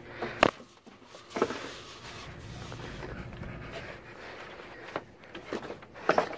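A person moving across an attic over wood framing and loose insulation: a few scattered knocks and thuds, with a steady rustling between them.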